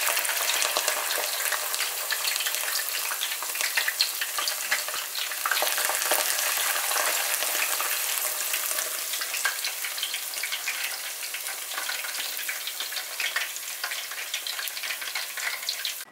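Starch-battered acacia blossoms deep-frying in hot oil: a steady, dense crackling sizzle that cuts off suddenly at the end.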